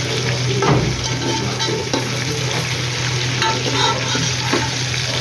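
Food frying and sizzling in hot oil in a pan while being stirred, with a utensil knocking and scraping against the pan. There is a sharp knock under a second in.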